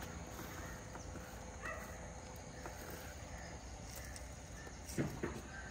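Faint outdoor background ambience, with two short knocks about five seconds in.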